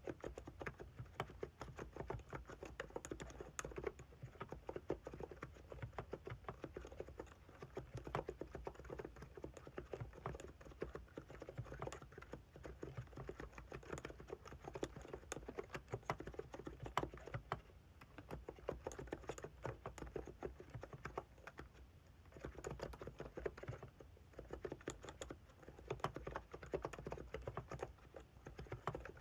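Continuous typing on a Hansung GK868B TICO keyboard with 50g electro-capacitive (non-contact) switches: a dense, uneven patter of soft keystrokes, easing off a little about two-thirds of the way through.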